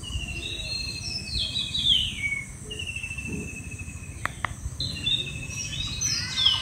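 Birds calling: a rapid chattering trill comes three times, with short falling whistles in between, loudest about two seconds in. Under it runs a steady low rumble.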